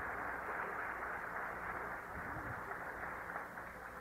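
Steady hiss and background noise of an old, narrow-band tape recording, with no speech.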